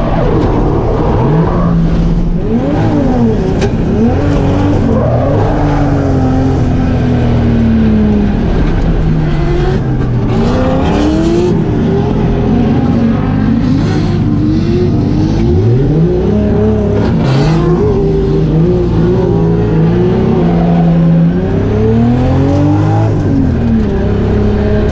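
Drift car engine revving hard, its pitch climbing and dropping again and again every second or two.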